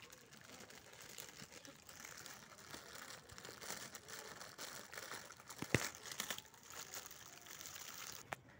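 Thin clear plastic bag crinkling and rustling as it is pulled and worked off a plastic toy tractor by hand. A single sharp tap stands out a little past halfway through.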